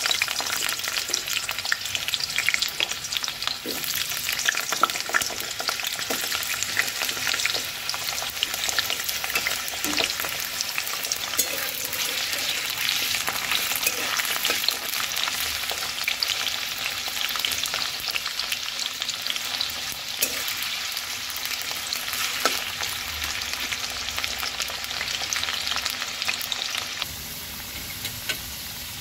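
Potato wedges sizzling steadily in hot mustard oil in a metal kadai, with a metal spatula scraping and clicking against the pan now and then as they are stirred. The sizzle eases slightly near the end.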